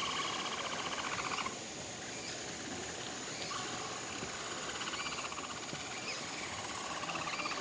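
Herd of capybaras singing together: a rapid pulsing buzz that stops about a second and a half in, comes back faintly, and swells again near the end.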